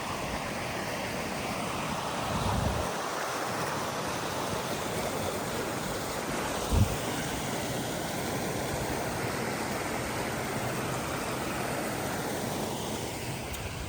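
Steady rushing of a forest stream, with a dull low thump about seven seconds in.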